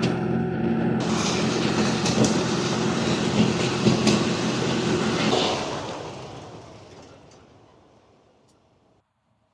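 A high-power wind-test blower running, a steady roar of rushing air over a low hum, with the tent fly snapping sharply a few times. About five and a half seconds in the blower is switched off, and its sound dies away over the next three seconds as it spins down.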